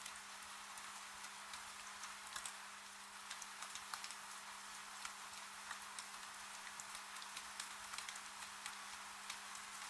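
Rain falling on a window: a soft steady hiss with irregular sharp ticks of drops striking the glass.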